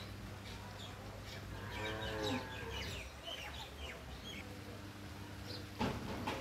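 A single drawn-out animal call, falling in pitch, about two seconds in, over small birds chirping. A sharp knock comes near the end.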